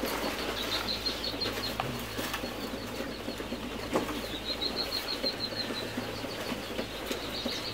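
A crowd of partridge chicks peeping in quick runs of short, high notes over constant rustling and scratching. A steady low hum runs underneath.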